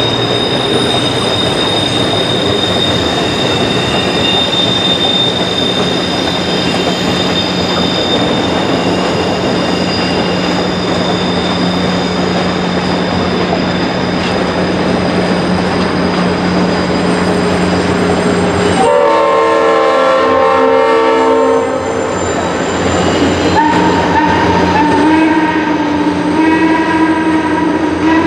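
Steam locomotive 1309, a 2-6-6-2 Mallet, running with its passenger train: steady rolling noise with a thin high wheel squeal, then its whistle blows. There is a long blast about two-thirds of the way through, and a second, wavering blast near the end.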